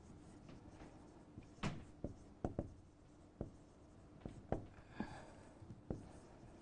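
Marker pen writing on a whiteboard: faint, scattered taps and scratching strokes as words are written out.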